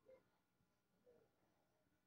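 Near silence, with two very faint short sounds about a second apart.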